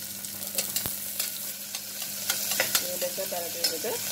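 Sliced onions sizzling in hot oil and ghee in an aluminium pressure cooker, stirred with a perforated steel ladle that clinks against the pot several times.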